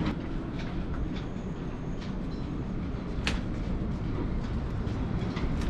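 A few scattered sharp knocks, the clearest about three seconds in, over a steady low rumble: blows bashing a sailboat's propeller-shaft P bracket to work it loose.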